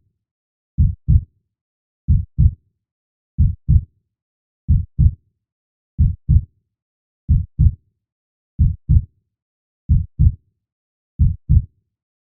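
Heartbeat sound effect: slow, steady lub-dub double thumps, deep and low, one beat about every 1.3 seconds. The last beat falls near the end.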